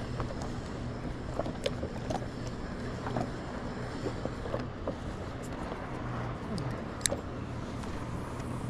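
Water lapping and ticking around a paddleboard at sea, over a steady low hum.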